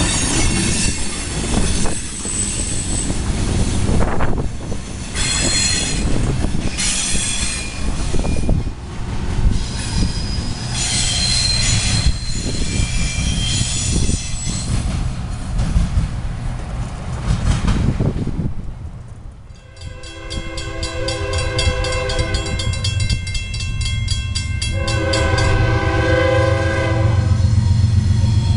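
Freight train of refrigerated boxcars rolling past on a sharp curve: a steady rumble with steel wheels squealing in high tones that come and go. After a short drop, a train horn sounds two long blasts, the second starting about five seconds after the first.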